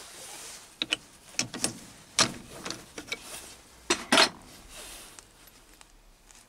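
Light metallic clicks and clinks as a parted-off brass spinning top is picked out of the brass swarf on a mini lathe's bed and handled: about ten sharp taps, the loudest about two seconds in and just after four seconds, then it goes quieter.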